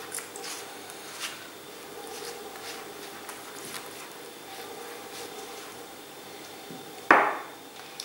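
Silicone pastry brush dabbing olive oil over puff pastry on a paper-lined baking tray, with light scattered taps and clicks. One louder knock comes about seven seconds in.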